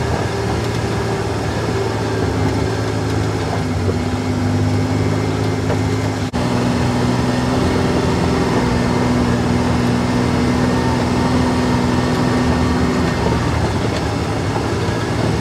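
Kawasaki Mule Pro FXT utility vehicle's three-cylinder engine running at a steady speed under way, with tyre and gravel noise from the dirt trail, heard from inside the cab.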